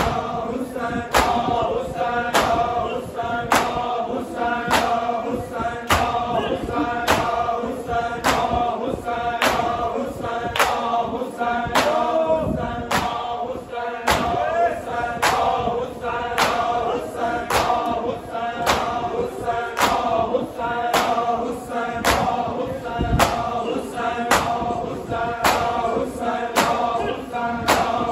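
A crowd of men chanting a noha lament together, over a steady, even beat of palms striking bare chests in unison (matam).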